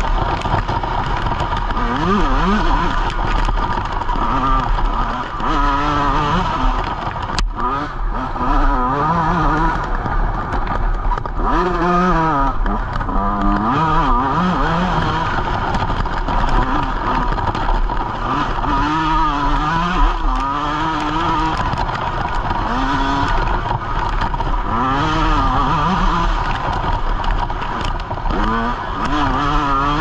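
Yamaha YZ125 single-cylinder two-stroke dirt bike engine revving up and down under load, its pitch rising and falling again and again as the throttle is worked.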